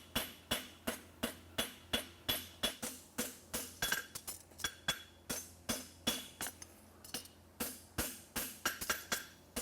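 Hammer striking a hot steel horseshoe on an anvil in quick, even blows, about three a second, each with a short metallic ring, as a toe clip is drawn out.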